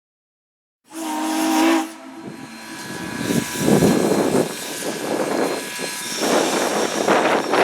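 Southern Railway 2-8-0 steam locomotive No. 630: a short blast of its steam whistle about a second in, then hissing steam and heavy exhaust chuffs as the engine works.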